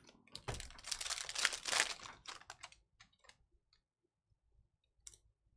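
Foil trading-card pack wrapper crinkling and tearing as it is opened, for about two seconds, then a few light clicks as the cards are handled, and one more click near the end.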